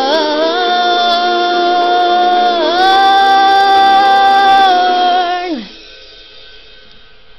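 A high voice singing long held notes over a steady backing track, ending with a downward slide about five and a half seconds in; after that only faint room sound.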